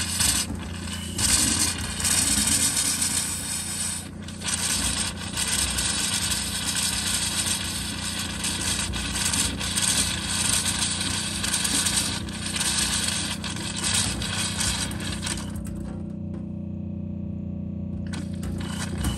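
Camper van pressure water pump humming steadily while water and air spit and hiss from the open hot tap, purging air from the newly plumbed calorifier hot-water system. The sputtering stops for a couple of seconds about 16 seconds in, then starts again near the end.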